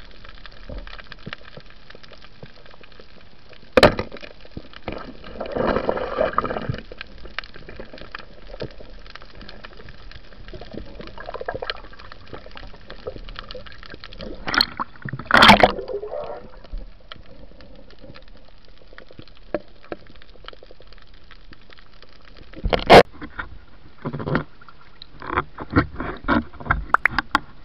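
Underwater water noise: a steady hiss with gurgling, bubbling bursts and a few sharp knocks, then a run of quick clicks near the end.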